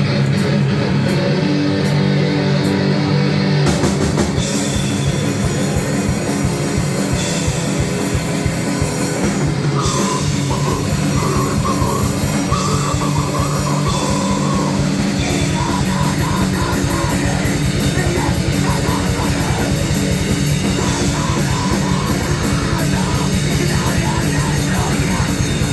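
Grindnoise band playing loud: a distorted guitar chord is held for about four seconds, then very fast drumming and distorted guitar come in.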